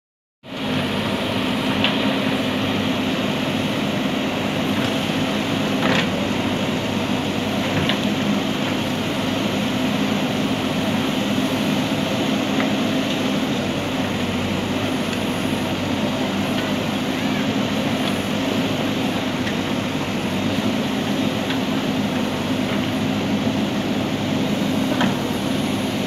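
JCB 3DX backhoe loader's diesel engine running steadily under load as the backhoe arm digs, with a few brief sharp knocks.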